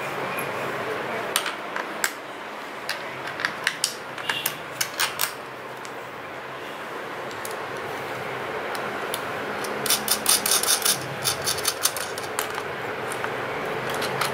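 Sharp clicks and taps of plastic and metal bicycle parts being handled as a front mudguard is fitted to a suspension fork. The clicks come scattered at first, then in a quick run about ten seconds in, over a steady background hum.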